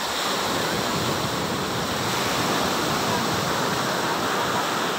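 Sea surf washing onto a sandy beach: a steady rush of noise.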